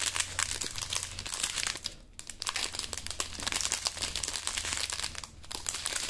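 Small sealed plastic packets of diamond painting drills crinkling as they are handled and turned over, a dense crackle with two brief lulls, about two seconds in and near the end.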